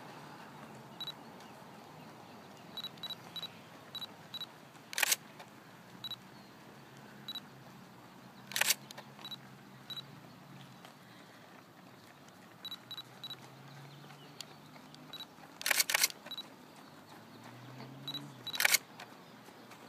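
DSLR shutter firing several times, each a sharp clack, a few seconds apart, with a quick burst of two or three shots about three-quarters of the way through. Between the shots come short, faint, high-pitched ticks in little clusters.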